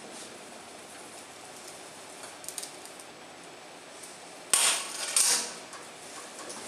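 Metal kitchenware clattering on the worktop, twice in quick succession about four and a half seconds in, after a few faint clicks.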